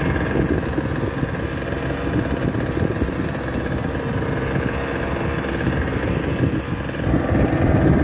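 Steady, unchanging drone of a small engine running aboard a fishing boat.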